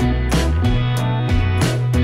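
Background music: a song with guitar and bass over a steady beat.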